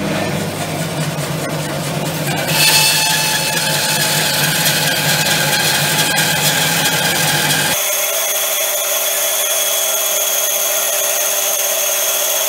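Jet variable-speed bandsaw cutting a hard mulga log, the blade biting in a couple of seconds in and running on with a steady high whine and rasp, over the hum of a shop vacuum. The low hum cuts off abruptly about eight seconds in while the saw keeps going.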